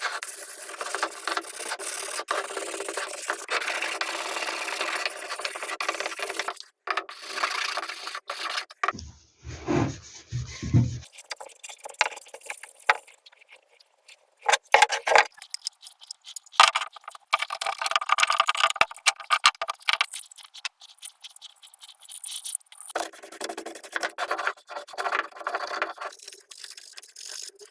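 Hand work on wood: repeated rubbing and rasping strokes, as in sanding or filing a wooden part, in several separate stretches broken by short gaps.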